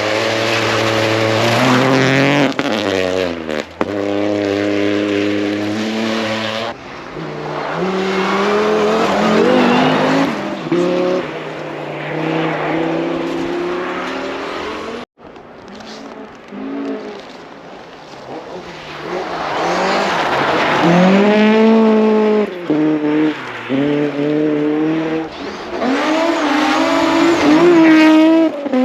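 Rally cars at full throttle on a stage: engines revving high, with the pitch dropping at gear changes and rising and falling as cars pass. There is a sudden break about halfway, then another car drives past.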